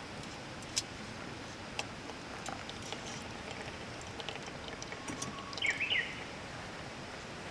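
Wood fire in a fire pit crackling, with scattered sharp pops over a steady hiss. About five and a half seconds in there is a brief high chirping call.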